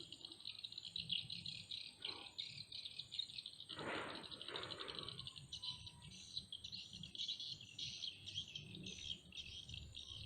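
A steady, pulsing chorus of insects, crickets or cicadas, chirring high and continuously. About four seconds in there are two short, rough noises.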